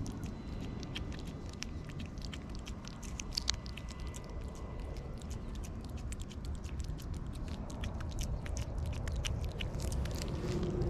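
A cat licking and lapping paste from a lickable treat tube: a fast, irregular run of small wet licking clicks over a steady low rumble.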